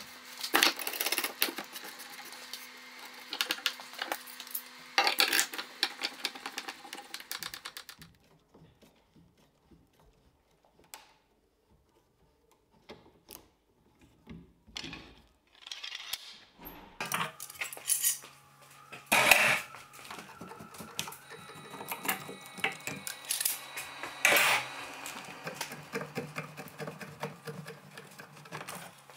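Steel bar clamps clinking and clicking as they are slid into place and screwed tight, with a much quieter stretch in the middle. A faint steady hum runs under the clinking.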